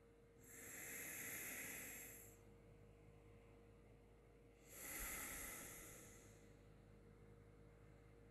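Two faint, slow breaths, each lasting about two seconds: one just after the start and a second about five seconds in.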